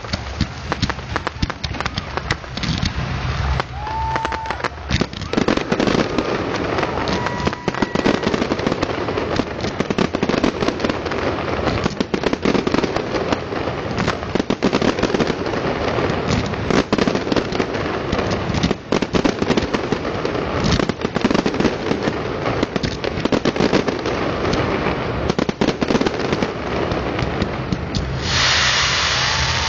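Fireworks display: a dense, continuous barrage of sharp cracks and pops from bursting shells. A louder, steadier rush of noise takes over near the end.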